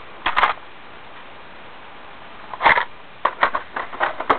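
Plastic makeup pencils and lipstick tubes clicking and rattling against each other as they are handled: one short clatter just after the start, then a run of quick clicks over the last couple of seconds.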